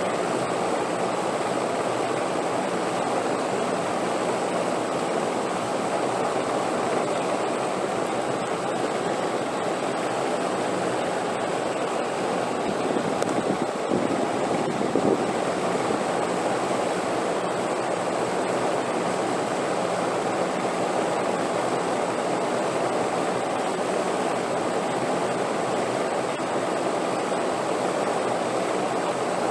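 Steady rushing wind, an even whoosh with slight swells about halfway through.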